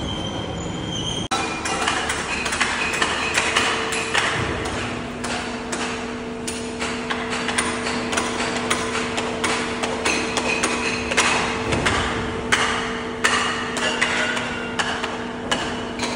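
Construction-site hammering: irregular sharp metal strikes, over a steady machine hum.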